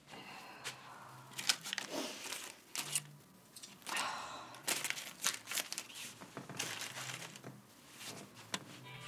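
Rustling and crinkling as things are handled and rummaged through, with scattered sharp clicks and knocks.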